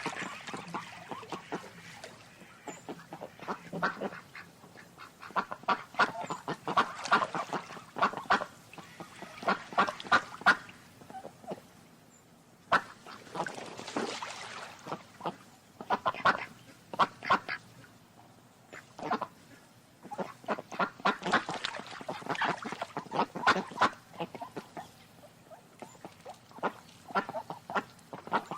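Ducks quacking in rapid runs of short calls, in several bouts separated by brief lulls.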